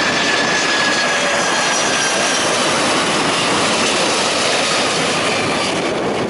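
Jet airliner's engines on landing approach: a steady rushing noise with faint whining tones that slide slowly down in pitch as the aircraft passes, easing slightly near the end.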